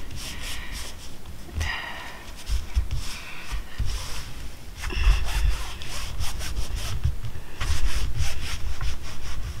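Hands rubbing and pressing a glued fabric patch onto the coated fabric of a Clam Quick-Set screened shelter, irregular rubbing strokes with dull low thumps, as the patch is pressed down to make it stick.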